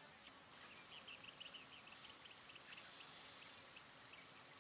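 An insect's steady high-pitched trill, with faint short chirps in the first half.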